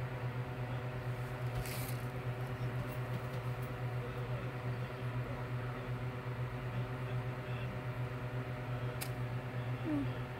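Steady low background hum with a ladder of even overtones, with a brief rustle about two seconds in and a single sharp click near the end.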